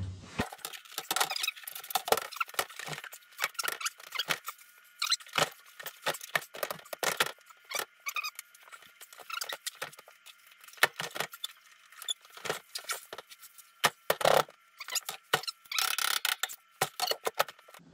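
Irregular clicks, knocks, scrapes and squeaks of an integrated freezer being jiggled and shifted in its cabinet housing, with louder clusters of knocking near the end.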